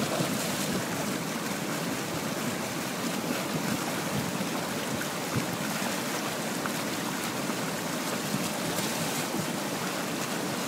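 Fast whitewater river rushing over rocks: a steady, even rush of water.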